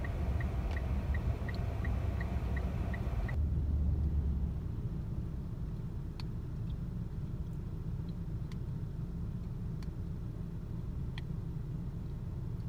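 Steady low outdoor rumble with a run of faint, evenly spaced ticks, about three a second, over the first three seconds. About three seconds in, the sound changes abruptly to a duller rumble with a few scattered faint clicks.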